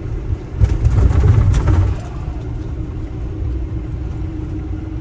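Ford Transit camper van driving, heard from inside the cab: a steady low rumble of engine and road noise. A louder rushing noise swells for about a second and a half, starting just over half a second in.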